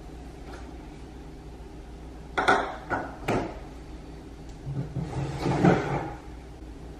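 Three sharp knocks of a cereal box and bowl being handled and set down on a granite kitchen countertop, followed a second or so later by a longer, rougher rustle and clatter.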